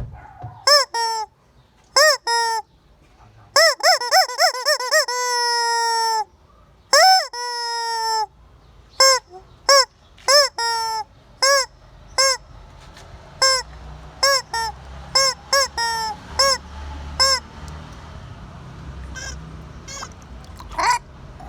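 Rubber screaming-chicken toy being squeezed over and over, giving short honking squawks that rise and fall in pitch. A quick run of squawks comes around four seconds in, and two long, steady held honks follow. The squawks get shorter and fainter toward the end.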